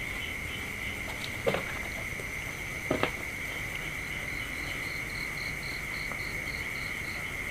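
Night insects trilling in one steady high drone, with a second insect chirping in a quick series of about four pulses a second from a little past the middle. There are two short, louder sounds about a second and a half and three seconds in.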